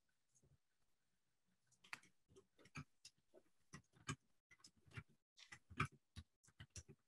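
Faint computer keyboard typing: irregular keystrokes starting about two seconds in.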